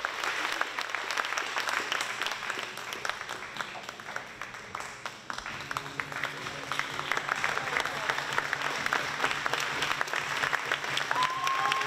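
A large audience applauding steadily for a curtain call. About halfway in a low steady hum comes in underneath, and near the end a higher held tone sounds over the clapping.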